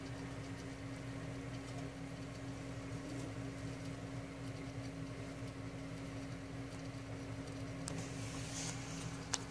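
Steady mechanical hum with one strong low tone, like a running appliance or fan, and two sharp clicks near the end.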